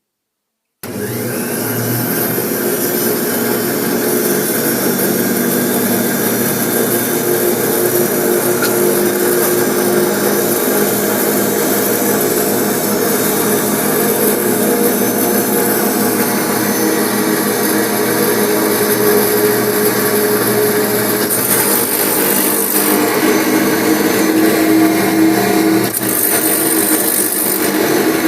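Automatic milling machine for cutting Hoffmann spacers in beehive frame side bars switching on about a second in, its motor whining up to speed and then running steadily. Twice near the end a short high hiss rises over the motor.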